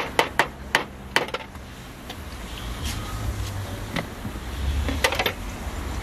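Sharp metal clicks and clinks of hand tools working the carburettor bolts on an engine: a quick run of about six in the first second and a half, then a few more spaced out, over a low steady rumble.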